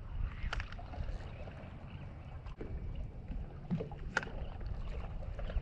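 Small waves lapping against the side of a drifting boat, with a steady low rumble and a few light clicks.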